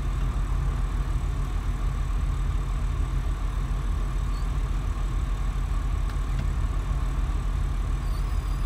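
Twin diesel engines of a motor yacht idling steadily: a continuous low rumble with a steady higher hum over it.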